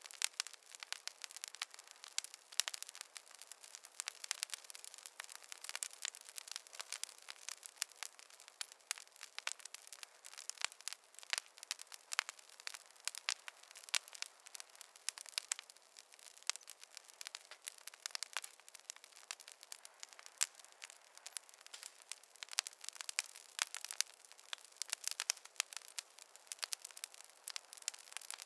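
Campfire crackling: dense, irregular pops and snaps of burning wood over a soft hiss.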